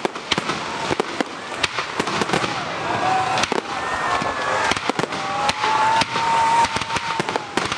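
Fireworks display: aerial shells bursting in rapid succession, many sharp bangs and crackles close together. A wavering whistle-like tone runs through the second half.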